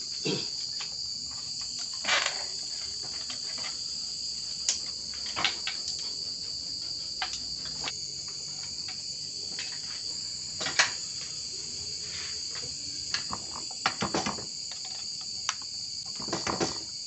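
Steady high chirring of insects, with a dozen or so short metal knocks and clunks scattered through it, the loudest about eleven seconds in and small clusters near the end. The knocks come from a Yamaha Vixion motorcycle engine being handled and lifted into its frame.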